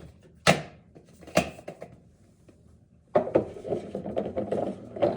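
Plastic water-filter housings and cartridges being handled: two sharp knocks, then from about three seconds in a continuous rubbing and scraping clatter.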